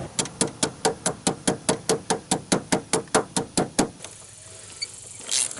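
Ratchet wrench clicking steadily as it tightens the negative battery terminal clamp, about five even clicks a second for some three and a half seconds.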